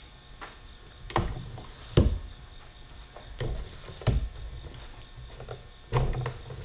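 Telescoping monopod pole being pulled out section by section: a series of about six sharp clicks and knocks, spread unevenly, as the sections slide and catch.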